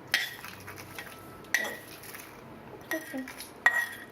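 A metal spoon clinking and scraping against metal cookware, several sharp clinks each with a short ring, as roasted ingredients are moved from the pan into a mixer jar.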